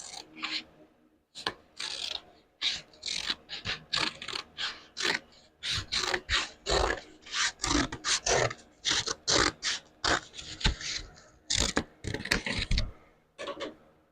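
Repeated hand rasping strokes on sheet metal, about two or three a second, with a few low knocks near the end.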